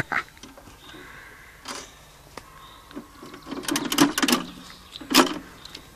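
Coin-operated gumball vending machine worked by hand: a coin goes into the slot, then the turning knob is cranked, its mechanism clicking and rattling about four seconds in, with one louder clack a second later.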